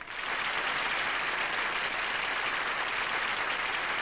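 Studio audience applauding, a steady even clapping that follows the end of a song.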